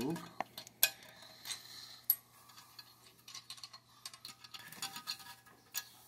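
Small steel nuts, lock washers and washers clinking as they are worked off the studs of a burner flange by hand: scattered sharp metallic clicks, two louder ones about one and two seconds in and a flurry near the end.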